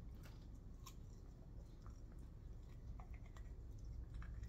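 Faint chewing of elote (corn on the cob) by someone wearing full dentures: small, soft, irregular clicks and crunches, a few a second, over a low room hum. Near the end the dentures bite into the cob again.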